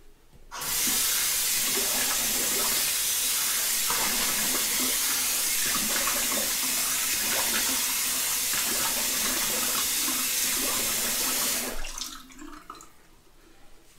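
Bathroom sink tap running full, with irregular splashing as water is scooped to rinse a face after a shaving pass. The water comes on about half a second in and shuts off about two seconds before the end.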